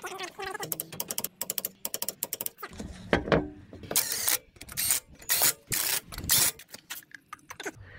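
Cordless impact driver run in about six short bursts, spinning down and tightening the lug nuts on a road wheel, after a few seconds of rapid clicking and rattling.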